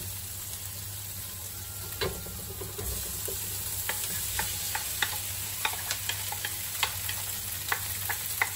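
Rice coated in raw egg yolk tipped into a hot wok of oil and onions, sizzling, with scattered clicks and scrapes of a wooden spatula against the bowl and wok. The sizzling picks up about three seconds in as the rice lands in the oil.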